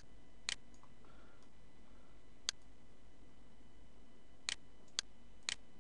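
Computer mouse button clicking about six times at irregular intervals, three of them close together near the end, over a faint steady hiss.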